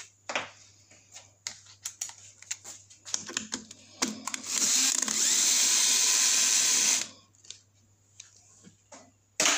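Cordless screwdriver running for about two and a half seconds in the middle, backing a screw out of the plastic air filter housing of a Briggs & Stratton mower engine. Light clicks of the tool and parts being handled come before and after.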